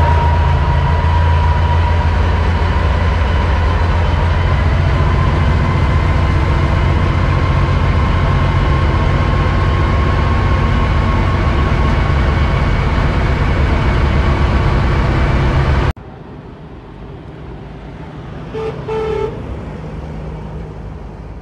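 1945 Dodge Power Wagon tow truck's flathead six running as it drives, heard from inside the cab: a loud steady drone with a thin whine over it. About two-thirds through it cuts off suddenly to a much quieter sound of the truck rolling past from outside.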